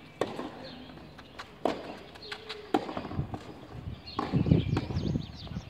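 Tennis balls struck by rackets in a clay-court rally: sharp pops about a second and a half apart. From about four seconds in there is a louder burst of low rumbling noise.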